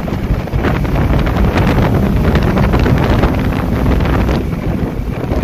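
2009 Honda Accord V6 coupe's straight-piped exhaust heard from inside the cabin while driving with the windows down, under heavy wind buffeting on the microphone. The roar eases slightly after about four seconds.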